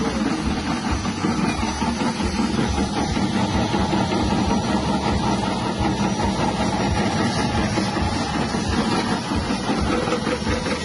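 Electric chip-slicing machine running steadily, its 180-watt motor spinning the cutter while produce is pressed down the feed tubes and sliced.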